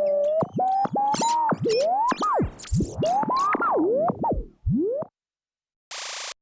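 Synthesized game-show sound effect: a single electronic tone sliding up and down in quick, chopped swoops, ending in a falling swoop about five seconds in. A short burst of hiss follows near the end.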